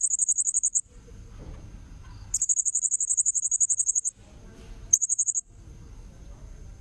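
Blue-crowned hanging parrot (serindit) calls played as a lure recording: three bursts of high, rapid trilling notes, the middle one the longest, with quieter low background noise between them.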